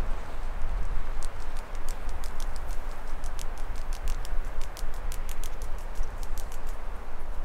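Irregular light, sharp clicks, several a second and thickest through the middle, over a steady low rumble.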